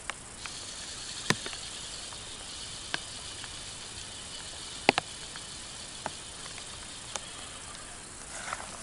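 Outdoor ambience by a pond: a steady high hiss with a faint insect-like buzz, broken by a few scattered sharp ticks, the loudest two close together about five seconds in.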